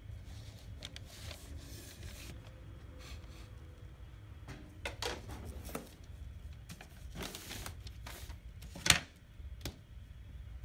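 A painted wooden board being handled and turned on craft paper: soft rubbing and rustling with a few light knocks, the sharpest one about nine seconds in, over a low steady hum.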